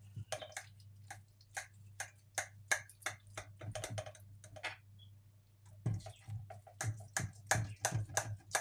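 Table knife clicking and tapping against the bottom of a glass baking dish while cutting baked pasta into small pieces: a run of short sharp clicks, a pause about five seconds in, then more clicks. A faint steady low hum runs underneath.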